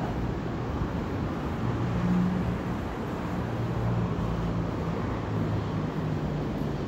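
Road traffic: a steady rush of passing cars with a low engine hum that swells a little about two seconds in.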